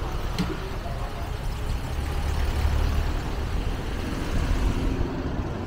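Road noise from a passing motor vehicle: a low engine rumble that swells about two seconds in, over steady outdoor background noise.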